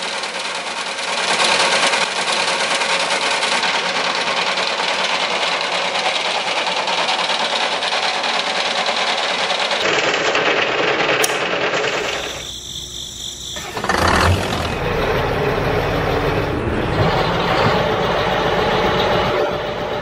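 Continuous mechanical running noise from miniature model machinery driven by small motors. The sound changes abruptly at cuts about ten and fourteen seconds in, with a brief quieter dip just before the second cut.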